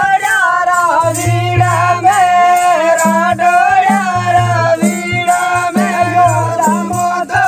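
Rajasthani Gavri folk song: one voice singing with a wavering melody over a steady low drum beat and rattling percussion.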